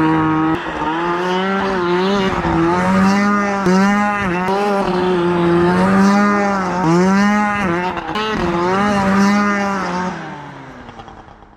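Snowmobile engine revving up and down again and again as the sled rides past, its pitch rising and falling about once a second, then fading away near the end.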